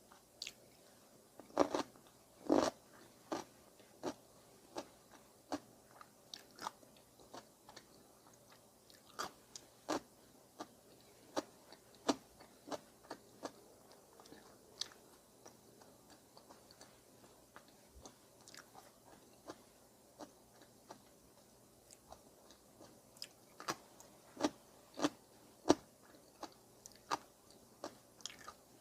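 Close-up eating sounds: a person chewing and biting food, a string of short, crisp crunching clicks at an uneven pace of about one or two a second, louder a couple of seconds in and again near the end.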